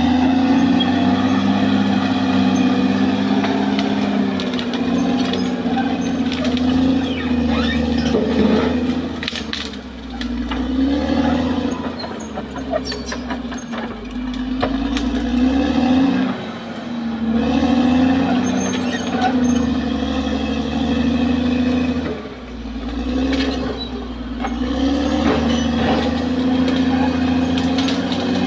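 Caterpillar D6R XL bulldozer's diesel engine working under load, its pitch and loudness sagging and recovering every five or six seconds as the machine pushes, with scattered clanks.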